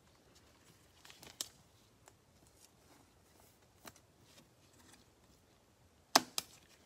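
Trading cards being handled on a table: light rustling and a couple of soft taps, then two sharp clicks in quick succession near the end.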